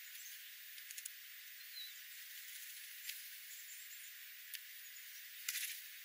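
Faint outdoor ambience: a steady hiss with a few faint, high, short chirps of small birds and scattered light clicks, the loudest a short cluster near the end.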